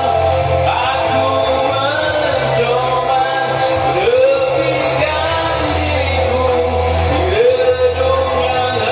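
Karaoke singing over a backing track with a steady bass, the voice swooping up into long held notes twice.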